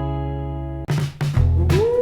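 Retro 1950s-style rock-and-roll music: a held guitar chord rings and slowly fades, then about a second in the music breaks off sharply and restarts with drums and bass, and a long held note comes in near the end.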